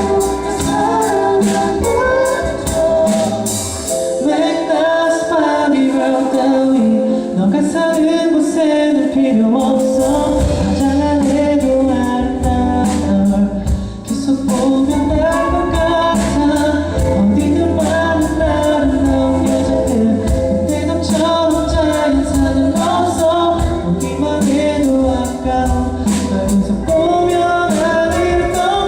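A male singer singing live over a band with a steady drum beat; the bass falls away about four seconds in and comes back about ten seconds in.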